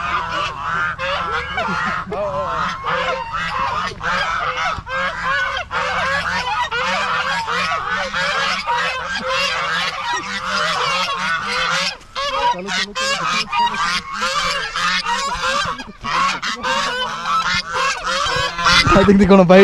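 A large flock of white domestic ducks calling all at once as they chase after people, a dense, unbroken clamour of overlapping quacks that grows louder near the end.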